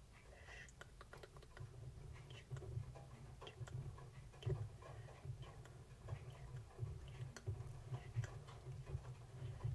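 Fine-tip pen drawing short strokes and dots on paper close to the microphone: an uneven run of faint ticks and scratches as a small doodle pattern is inked in.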